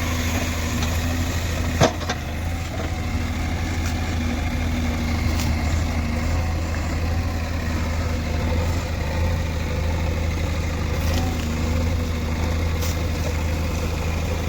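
Heavy diesel engine idling steadily, with one sharp knock about two seconds in.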